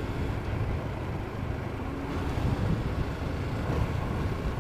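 Yamaha Jupiter MX King (Y15ZR) with its stock exhaust, riding along steadily: a low, even engine rumble mixed with wind rush.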